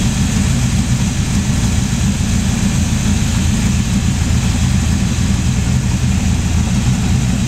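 Small-block Chevy V8 idling steadily, run at idle to purge trapped air from the cooling system.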